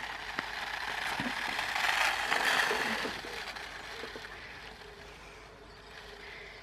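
Toy RC buggy's small electric motor and gears whirring, with its tyres on a tarmac path. The sound grows louder to a peak about two seconds in, then fades as the car drives away.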